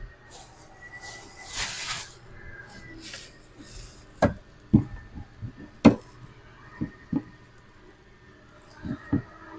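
Plastic bags rustling, then a series of sharp knocks and thumps as bottles and a plastic bucket are lifted out of a car's back seat and set down on concrete, with two last knocks near the end.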